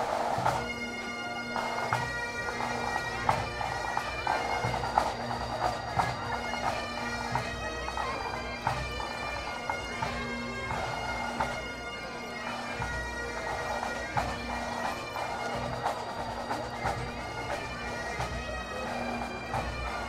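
Highland bagpipes of a pipe band playing a tune: a steady drone under a changing chanter melody.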